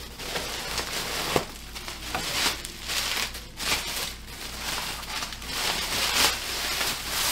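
Plastic bubble wrap being pulled out of a cardboard box and unwrapped by hand: irregular rustling and crinkling, with small crackles.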